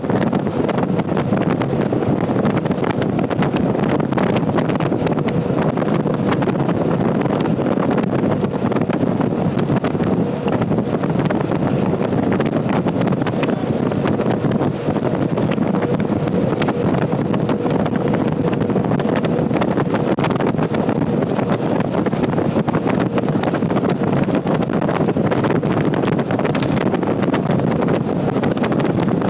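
Steady road and wind noise of a vehicle travelling at highway speed, with wind buffeting the microphone and a faint steady hum underneath.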